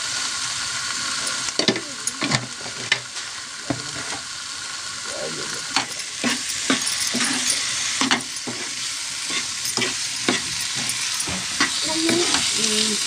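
Tomato and spice masala sizzling in oil in a kadhai, stirred with a long metal spatula that scrapes and clicks against the pan at irregular moments over the steady hiss of frying.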